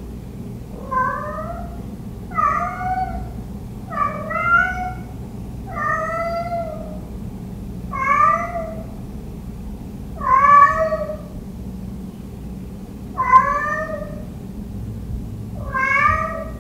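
Domestic cat meowing over and over, about eight drawn-out meows roughly two seconds apart, each rising then falling in pitch: a house cat calling for its absent owner.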